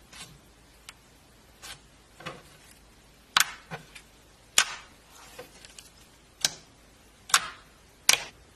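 Pink glitter clear slime being pressed and squished by fingers, giving a dozen or so irregular sharp clicks and pops, the loudest in the second half.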